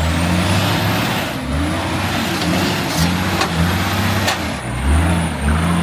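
Four-wheel-drive engine working under load, its revs rising and falling in steps, with a few sharp knocks about three and four seconds in.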